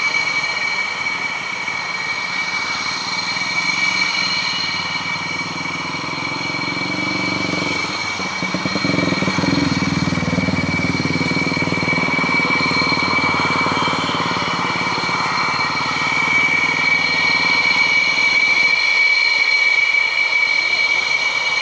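Twin General Electric F404 turbofan engines of an F/A-18D Hornet fighter as it taxis along the runway: a steady high-pitched jet whine over a rushing noise, with a deeper rumble that swells from about eight seconds in.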